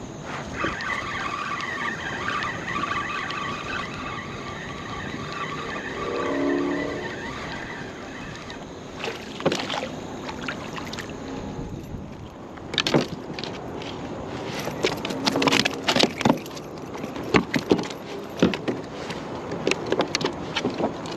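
Fishing reel whirring steadily as the line is reeled in for the first several seconds. Then a white perch is brought alongside and lifted into the plastic kayak, with a run of sharp clicks and knocks as it is landed and handled.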